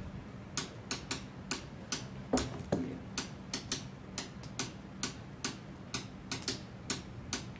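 A hand tapping on a tabletop, knocking out the rhythm of a well-known song in uneven groups of quick, sharp taps, about three taps a second.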